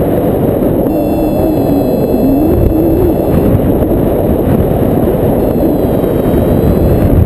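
Wind buffeting the action camera's microphone in paragliding flight: a loud, steady rumbling rush.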